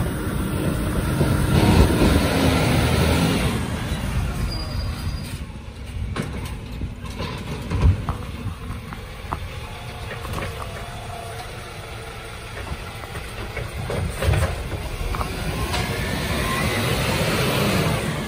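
Side-loader garbage truck running while its automated arm lifts a wheelie bin, tips it into the hopper and lowers it, the engine and hydraulics working throughout. There are two sharp clunks, about eight seconds in and again about fourteen seconds in.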